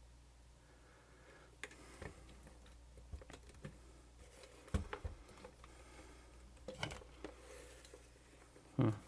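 Scattered light clicks and taps of small tools and plastic camcorder parts being handled and fitted during reassembly, with one louder knock about five seconds in.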